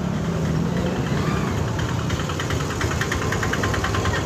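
A vehicle engine idling close by in street traffic: a steady low rumble, joined about halfway through by a rapid, even rattling clatter.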